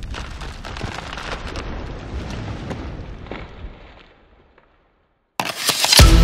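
Logo-reveal sound effect: spark-like crackling over a low rumble that fades out about four seconds in, then after a second of silence a sudden loud boom-like hit near the end.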